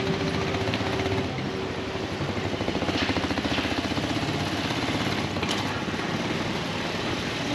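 Small motorcycle engine running at low speed, a rapid, even putter.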